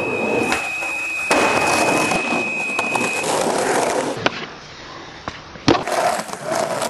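Skateboard rolling on a hard surface, with several sharp clacks of the board striking the ground, the loudest a little past the middle.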